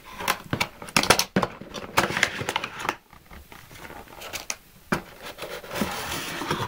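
Packaging being handled: rustling and crinkling with a run of sharp clicks and knocks in the first three seconds, then quieter crinkling with a few taps.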